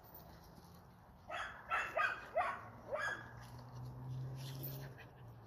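American pit bull terrier giving about five short, high barks in quick succession, each falling in pitch, followed by a low steady hum.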